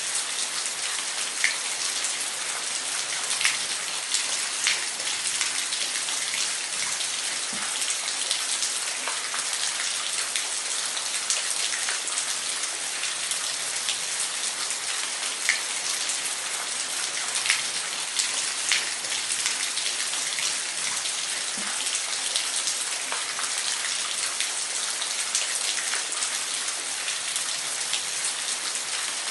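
Waterfall: a steady hiss of falling water, with scattered sharper splashes and drips standing out from it now and then.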